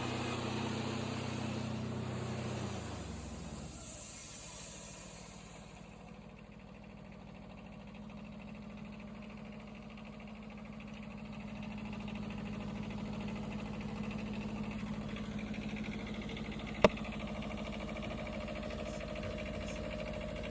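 Wood-Mizer LT15 Wide portable band sawmill's engine running steadily. Its pitch drops about two to three seconds in, it fades somewhat and then builds back, and there is a single sharp click near the end.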